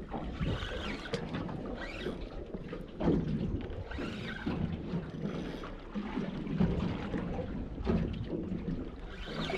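Wind buffeting the microphone, with water sloshing against the hull of a small boat on open sea.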